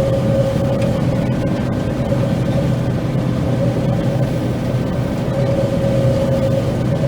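John Deere 9500 combine running steadily while harvesting soybeans: a constant machine drone with a steady whine over it.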